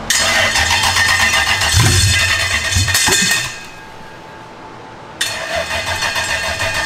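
Toyota 3UZ-FE V8 on an engine stand cranking, catching and running briefly with a couple of surges, then dying about three and a half seconds in; a second burst starts suddenly about five seconds in. It keeps starting and dying while running super rich, which the owner suspects is from too much fuel pressure.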